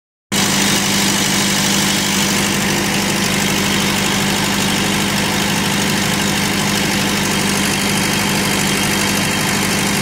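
1975 John Deere 450 bulldozer's engine idling steadily.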